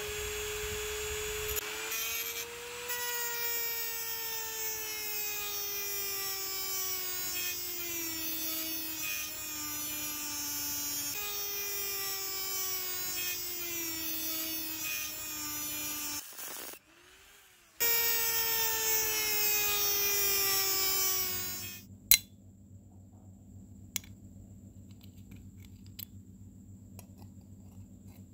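Small handheld electric power tool motor whining at high speed, its pitch sagging slowly as it is pressed into the work and jumping back up when the load comes off. It stops briefly just past halfway, starts again, and cuts off for good about three-quarters of the way in, leaving faint clicks over a low hum.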